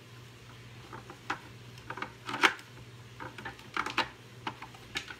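Block of Parmesan cheese being grated in a countertop rotary grater, pressed down the chute: irregular scraping and clicking as the cheese catches on the turning grating drum, over a steady low hum.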